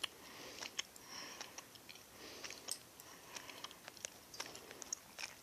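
A person chewing jelly beans close to the microphone, with faint, irregular wet clicks and smacks.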